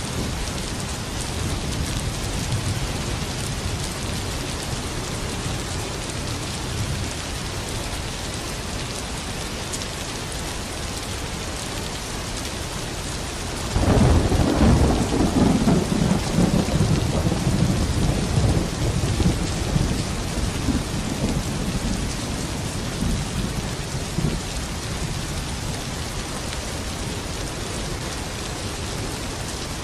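Steady heavy rain falling, with a loud thunderclap about halfway through that rumbles on and slowly dies away over several seconds.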